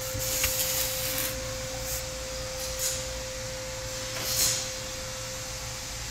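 A steady hum on one tone, with a few short rustles and soft clicks of the camera being handled and moved. The loudest rustle comes about four and a half seconds in.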